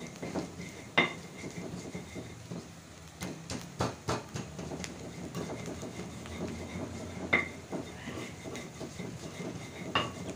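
Metal spatula clinking and scraping against an aluminium wok of frying sliced onions, with four sharp ringing clinks roughly every three seconds.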